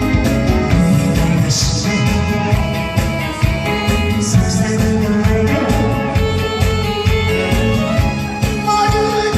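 Song with a steady beat and a voice singing over the accompaniment, played loud through a stage sound system.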